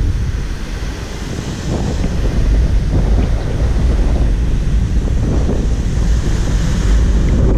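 Wind buffeting the microphone in a heavy low rumble, over the rushing hiss of breaking ocean surf.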